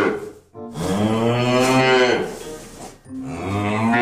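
Cows mooing: one long moo of about two seconds, then a second long moo starting about three seconds in.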